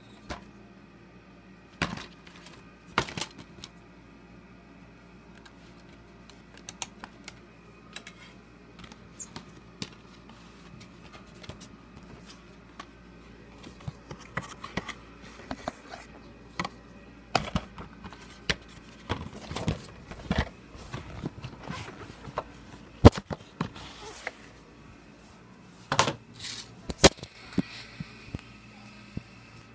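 Plastic DVD case and disc being handled and opened: a scattering of irregular clicks, snaps and rattles, the sharpest snaps about three quarters of the way through.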